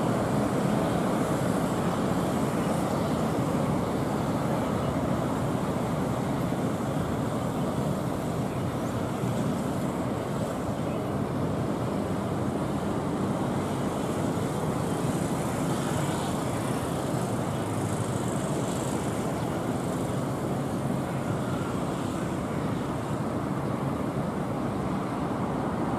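Boeing 737 jet engines on landing approach: a steady rushing roar that eases off slightly as the aircraft touches down and rolls along the runway.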